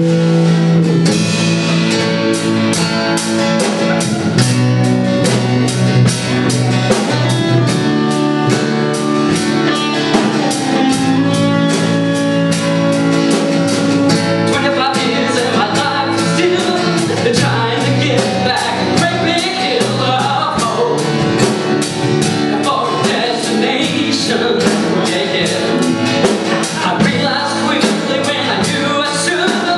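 Small rock band playing live: acoustic and electric guitars over a drum kit keeping a steady beat, with a man singing into the microphone.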